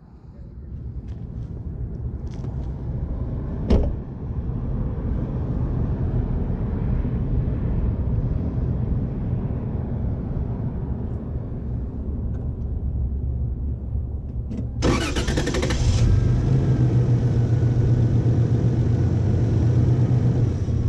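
Toyota 4Runner's engine started and idling steadily, with a sharp click about four seconds in. About fifteen seconds in comes a brief loud hiss, after which the engine runs louder.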